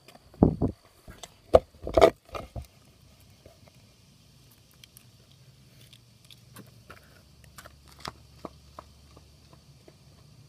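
Handling noise of a phone being set down on the ground: a cluster of loud thumps and scrapes on the microphone in the first three seconds, followed by a few faint ticks.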